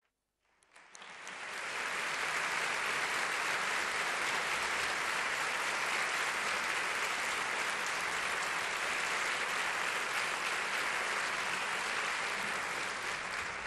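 Large audience applauding in a concert hall. The applause fades in over the first couple of seconds, holds steady, and dies down near the end.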